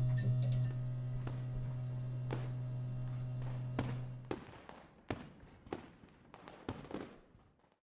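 Firework sound effects: a steady low tone with scattered pops for about four seconds, then several separate firework bangs and crackles, each fading, that die away shortly before the end.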